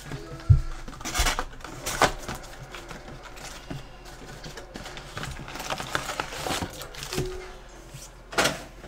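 A box of trading-card packs being opened and handled: scattered knocks and the rustle and crinkle of cardboard and foil pack wrappers, with a sharp knock about half a second in and a louder crinkle near the end.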